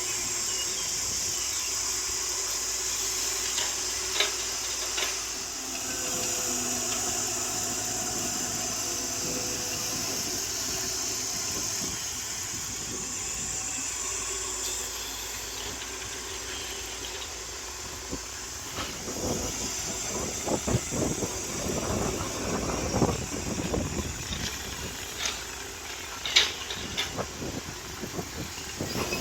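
Caterpillar excavator's diesel engine running under a steady high hiss. From about two-thirds of the way through, irregular clattering knocks join in as it digs into the ground.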